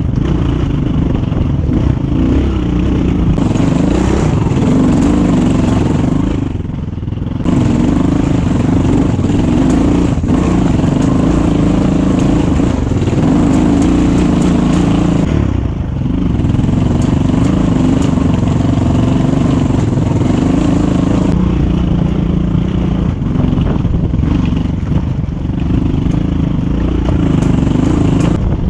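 GPX 250 dirt bike engine running under changing throttle while riding, its pitch rising and falling, with two short dips in engine sound about seven and sixteen seconds in.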